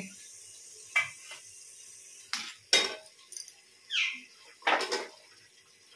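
A steel spoon clinking and scraping against a metal pressure cooker pan as chopped vegetables are tipped in: about five separate short clinks and scrapes, one about four seconds in sliding downward.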